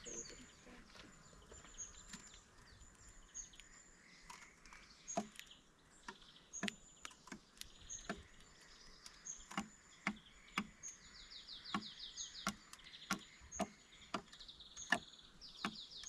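Wild birds singing and calling: a short high chirp repeated about once a second, and two bursts of fast, rattling trills in the second half. Sharp clicks or taps sound at irregular intervals throughout.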